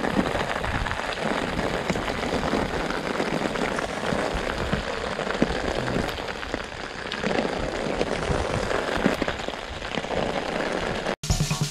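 Heavy downpour falling steadily, with scattered sharper drops ticking close by. It cuts off abruptly near the end as music starts.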